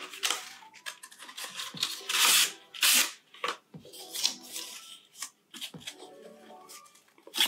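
Handling of the phone box's cardboard and paper packaging: several short rustles and scrapes as accessories are lifted out, over quiet background music.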